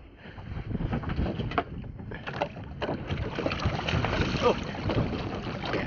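Wind buffeting the microphone and sea water lapping at a small boat, with splashing as a bream is lowered over the side by hand and released.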